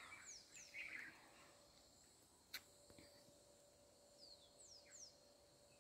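Near silence with a few faint bird chirps: two quick downward-sliding chirps near the start and three more near the end, and a single faint click about two and a half seconds in.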